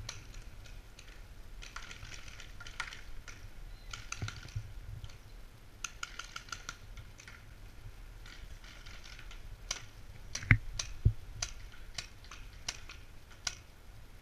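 Paintball markers firing across the field: scattered sharp pops, some in quick strings of several, with two louder shots about half a second apart roughly ten and a half seconds in.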